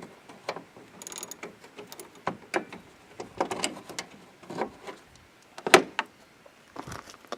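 Irregular metallic clicks, clinks and knocks of hand tools working the loosened 10 mm bolts of the hood latch free, with one sharper knock about three quarters of the way through.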